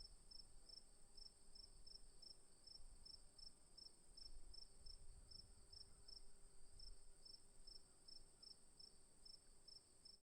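Faint chorus of crickets: a steady high trill under regular short chirps, about four a second. It cuts off abruptly near the end.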